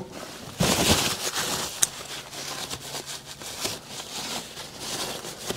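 Shop rag rubbing over the aluminium engine crankcase, an uneven rustling with a few small sharp clicks from hands and parts.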